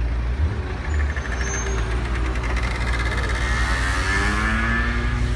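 Ferrari F40's twin-turbo V8 running at low revs as the car crawls past, a steady low engine note with the pitch shifting slightly from the middle on.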